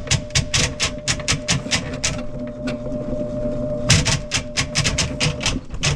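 Handheld electric drain snake running, its motor humming steadily while the spinning cable clicks rapidly, about six or seven clicks a second, as it is fed into a kitchen sink drain. The clicking pauses for over a second midway, then resumes, and the motor stops near the end.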